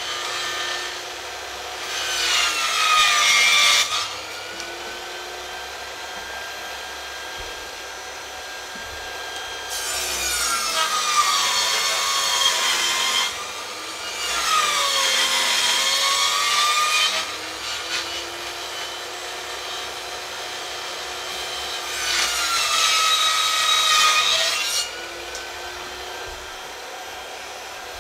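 A circular saw mounted in a Triton Workcentre saw table runs steadily with a whine and rips timber lengthwise four times. On each cut the sound grows louder and the motor's pitch sags under load, then climbs back as the board clears the blade.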